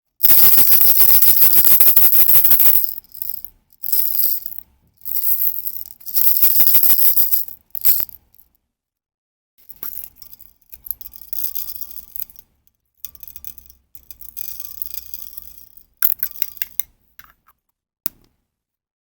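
Slime being squeezed and worked by hand, making bouts of sticky crackling and clicking with short pauses between them. The first bout, about three seconds long, is the loudest.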